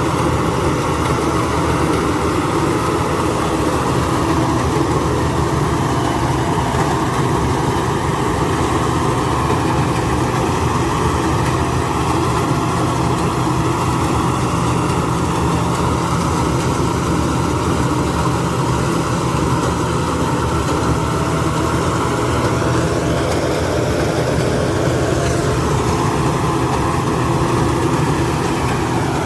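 Rice combine harvester engine running steadily.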